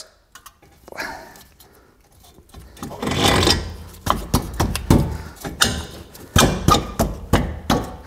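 A Porsche brake caliper loaded with new pads being worked over the rotor and onto its mounting studs. There is a scrape around three seconds in, then a run of knocks and clunks, two or three a second, as the caliper is pushed into place.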